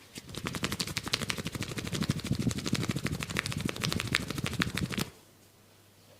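Rapid percussive massage strokes, hands chopping and tapping on the body at about a dozen strikes a second. They start just after the beginning and stop abruptly about five seconds in.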